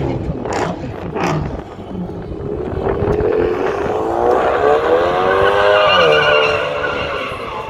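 A car engine revving hard while the car slides in circles, its pitch climbing and then dropping sharply about six seconds in, with tyres squealing on the pavement.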